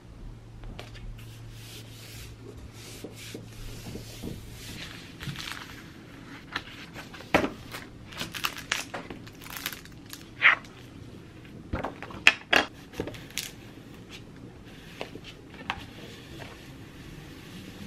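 Paper and plastic laminate sheets being handled on a desk: rustling with many sharp taps and clicks, the loudest clustered a little past the middle. A low hum sits under the first few seconds.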